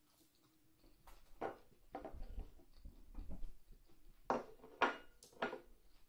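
Mukbang eating sounds: close-up chewing and wet mouth clicks while eating a seafood boil. They start about a second in, with a few sharper clicks near the end and a dull knock and rustle as the food and a plastic sauce container are handled.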